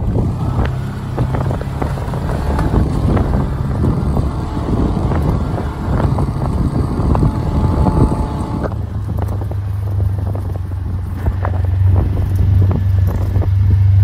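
Side-by-side farm utility vehicle driving across a rough paddock: a steady engine drone with frequent rattles and knocks from the cab and frame. About nine seconds in the rattling eases and a smoother, steady engine hum is left.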